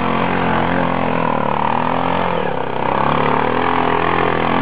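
Quad bike (ATV) engine working hard under load as it climbs a steep dirt slope; the revs dip about halfway through and then rise again.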